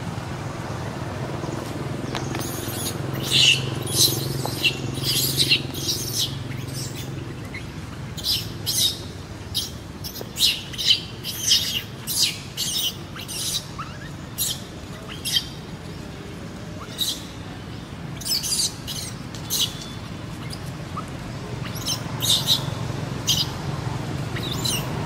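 Many short, high-pitched animal chirps and squeaks in irregular runs, over a low steady hum that fades after the first several seconds.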